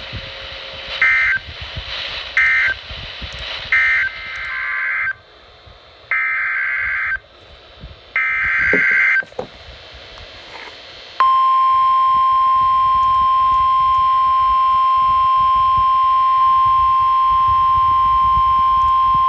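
NOAA Weather Radio emergency alert data bursts: three short warbling bursts of the end-of-message code, then three longer bursts of the next alert's SAME header. About eleven seconds in, the steady 1050 Hz warning alarm tone starts, signalling a warning-level alert.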